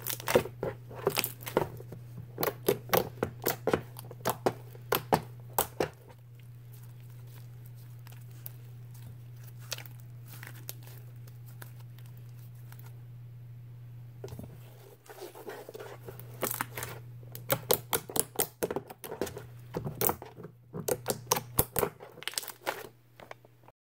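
Thick, glossy white slime squeezed and pinched between fingers, giving rapid runs of sharp crackling pops and clicks. The pops come thick for the first six seconds, thin out for several seconds, then pick up again for the last eight.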